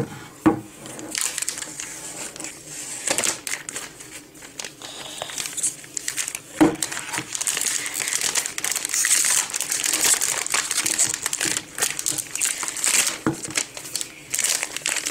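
Thin protective plastic film being peeled and pulled off an iPad: a continuous crackle of plastic with many sharp snaps, busiest past the middle.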